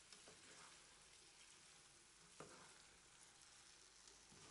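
Faint sizzling of pasta warming in an oiled frying pan, with a couple of soft clicks from a plastic spatula stirring it.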